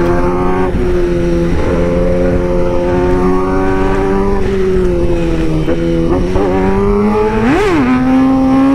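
Sport motorcycle's engine running at steady cruising revs, with wind rushing over the helmet-camera microphone. Around six seconds in the revs shift a little, and near the end a quick throttle blip sends the engine note sharply up and straight back down.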